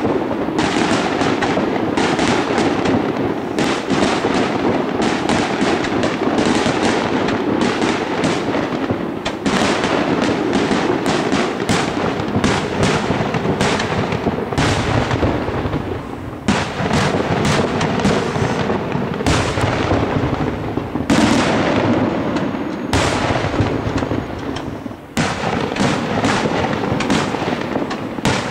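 Aerial fireworks shells bursting in rapid, near-continuous succession, bang after bang overlapping with rumbling echoes, with brief lulls about sixteen and twenty-five seconds in.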